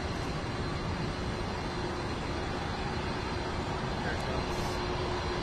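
Aircraft engines running as it approaches to land: a steady, even rumble with a faint hum.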